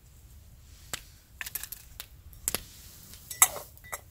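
A handful of short, sharp clicks and cracks at irregular intervals, the loudest about three and a half seconds in.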